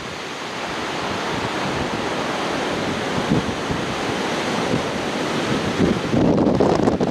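Strong wind blowing: a steady rushing noise that builds over the first second or two, with gusts buffeting the microphone near the end.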